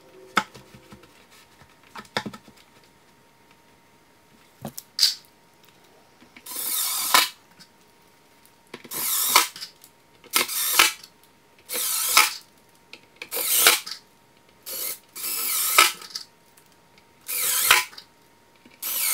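Cordless drill/driver running screws in to mount a subwoofer on its enclosure: a series of about eight short whirring bursts, one per screw, starting about six seconds in. Before them, a few light knocks as the woofer is set into the cutout.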